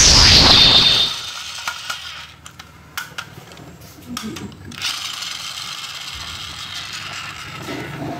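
A falling whoosh sound effect in the first second, then scattered plastic clicks and light rattles as a toy train is handled and turned over.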